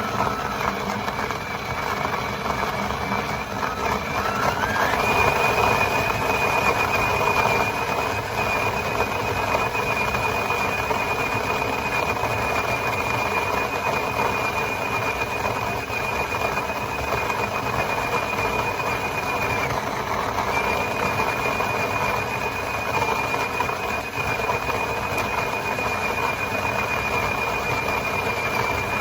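Electric burr coffee grinder motor running continuously, with a steady high whine that climbs in pitch about four to five seconds in and then holds.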